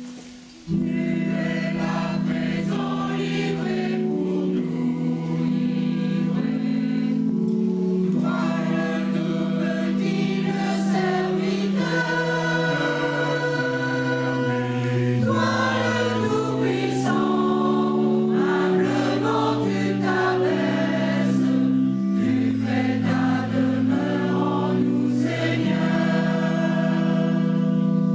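Mixed church choir of men and women singing a sacred piece in chords, with electronic keyboard accompaniment; the choir comes in less than a second in after a short break.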